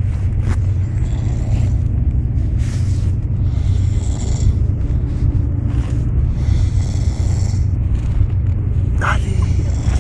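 A person snoring, a rasping breath every second or two, over a steady low rumble.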